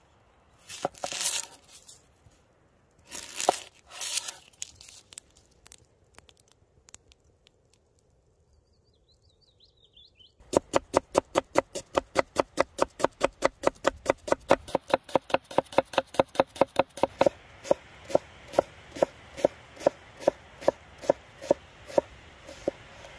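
An onion's dry papery skin crackling and tearing as it is peeled, a few short bursts. After a pause, a cleaver chops the onion on a wooden board in fast, even strokes, slowing to a steadier, slower chop for the last few seconds.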